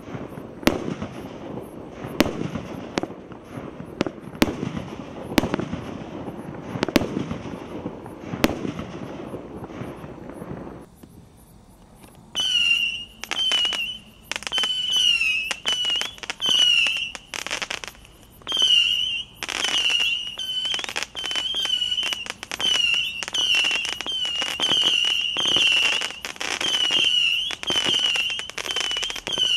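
Consumer fireworks from a cake-and-rocket crate. For about ten seconds sharp bangs about a second apart sound over a steady crackling haze. After a short lull a fast run of shrill, wavering whistling shots follows, one after another, with sharp cracks among them.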